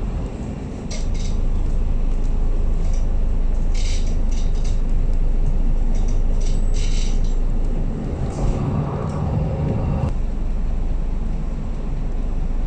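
MAN A22 city bus on the move, heard from inside the saloon: steady engine, drivetrain and road rumble, with short rattles now and then. A higher whine comes in about eight seconds in and cuts off suddenly about two seconds later.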